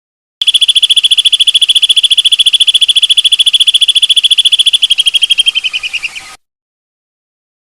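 A small songbird's long rapid trill: a fast, even run of dry, high notes held for about six seconds. It dips slightly in pitch near the end, then cuts off sharply.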